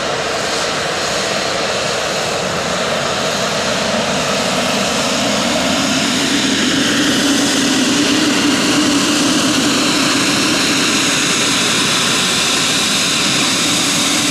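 Pilatus PC-12 NG's single Pratt & Whitney PT6A-67P turboprop running at taxi power: a steady propeller drone with turbine whine, growing a little louder as the aircraft taxis closer.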